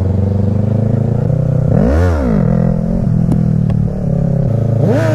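Yamaha R3 motorcycle's parallel-twin engine, fitted with an aftermarket exhaust, idling steadily. It is blipped about two seconds in, the revs rising and falling quickly, and rises again near the end.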